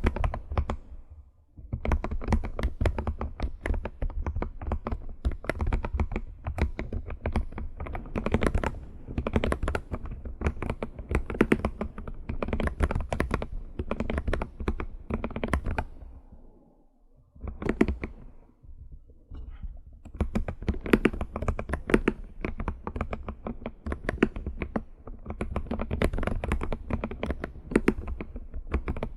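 Fast typing on a computer keyboard for ASMR, dense runs of key clicks broken by two short pauses.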